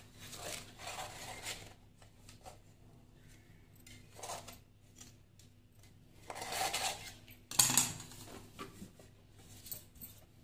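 A knife scraping around the inside of a metal cake tin to loosen a baked cake, in several short scraping passes, with a louder metal clatter of the tin about three-quarters of the way through.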